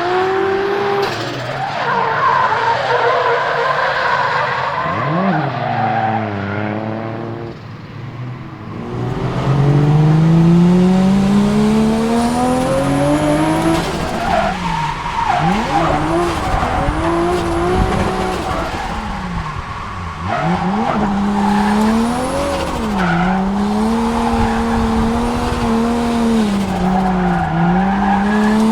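A Nissan 200SX S14's turbocharged RB25DET straight-six, heard from inside the car while drifting. The revs climb and drop over and over, with tyres skidding and squealing. It is quieter and lower for the first several seconds, then louder and higher-revving from about nine seconds in.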